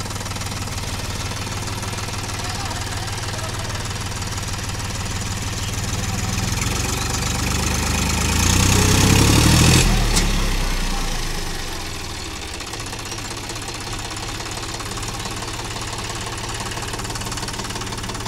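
John Deere 5050 D tractor's three-cylinder diesel engine running under load as it hauls on a tow rope through mud, revving up to its loudest about eight to ten seconds in, then easing back to a steady run.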